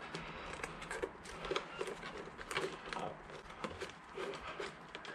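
Hands handling a motorcycle carburettor bank and its rubber hoses in the engine bay: light, irregular clicks, taps and rustling as the parts are shifted into position.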